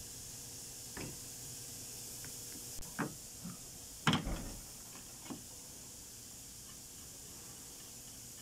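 A few sharp clicks and knocks of hand tools and metal parts being handled at a car's wiper-arm pivot, the loudest about four seconds in, over a steady faint hiss.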